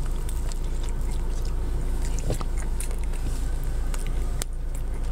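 A person chewing a mouthful of cinnamon roll, with many small wet mouth clicks, over a steady low rumble.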